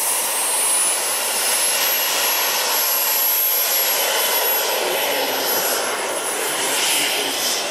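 Twin model turbine jet engines of a 1/16-scale RC Airbus A330-200 running at taxi power, a loud hiss with a high whine. The whine climbs over the first couple of seconds, holds, and eases down a little about six seconds in.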